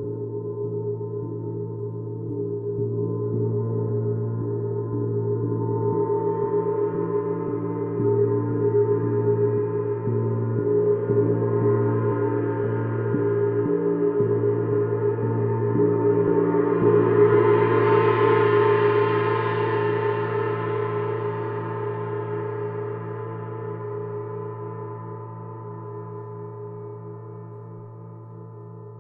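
Paiste Sidereal Moon gong played continuously, a dense wash of steady tones that swells to a loud, bright shimmer a little past halfway, then slowly dies away.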